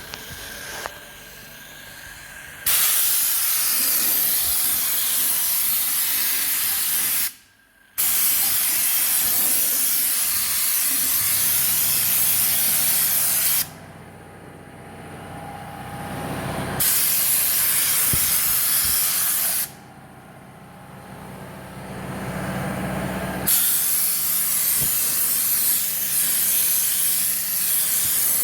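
Air-fed schutz gun spraying two-pack bed liner: a loud hiss in four long bursts of several seconds each, with short pauses between.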